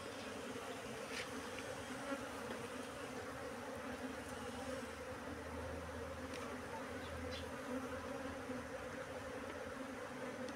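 A dense cluster of honeybees buzzing: a steady, even hum with a few faint ticks.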